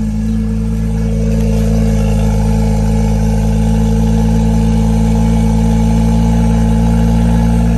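BMW N55 turbocharged inline-six idling steadily at the twin tailpipes on a cold start, its exhaust flap valve open.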